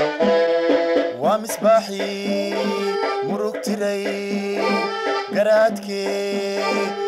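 Live band playing an instrumental passage of a Somali song with no singing: a sustained, reedy melody of held notes with a few upward pitch slides over a steady accompaniment.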